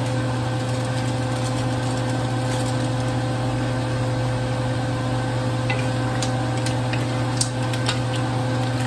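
Stir-fry in a hot nonstick wok: a steady sizzle and hiss under a constant low hum. In the second half come a few light clicks of wooden spatulas against the pan.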